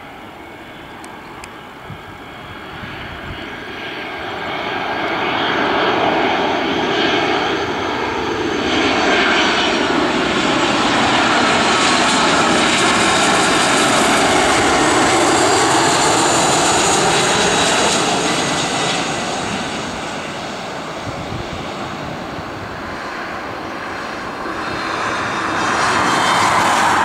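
Airbus A319 jet airliner's CFM56 turbofan engines on landing approach, growing louder as it passes close overhead with a high fan whine, then fading away. The engine noise swells again briefly near the end as the aircraft touches down on the runway.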